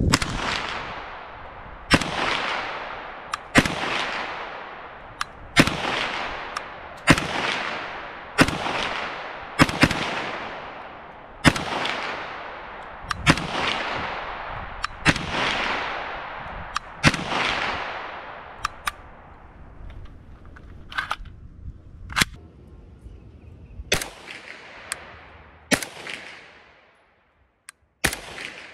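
Polish PPS-43 submachine gun in 7.62×25 mm Tokarev firing widely spaced shots, about one every one and a half to two seconds, each trailing off in a long decaying tail. From about two-thirds of the way in, the shots come sharper and closer together with shorter tails.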